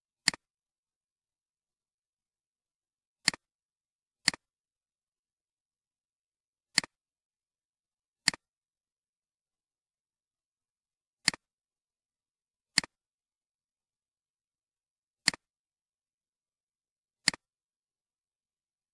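Computer mouse button clicking nine times at uneven intervals of one to four seconds. Each click is sharp, with a softer click just after it, the press and the release.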